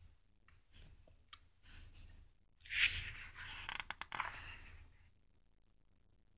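Comic book pages being handled and turned over, the paper rustling and sliding in several bursts, loudest about three seconds in, with a few crisp crackles as the page flips.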